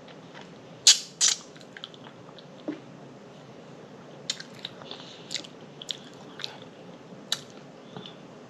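A person eating close to the microphone, with wet chewing and lip smacks. Two loud smacks come about a second in, then scattered smaller ones.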